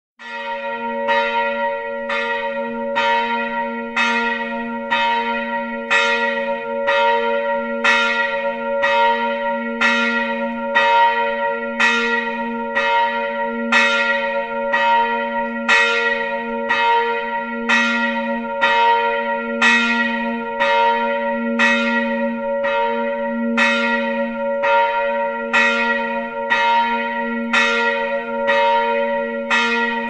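Church bells ringing in a steady peal, struck about twice a second, each stroke ringing on under the next.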